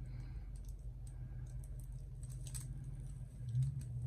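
Faint small ticks and clicks of a metallic paint pen's tip and gloved fingers on a cured epoxy resin piece as the pen is drawn along its edge, over a steady low hum.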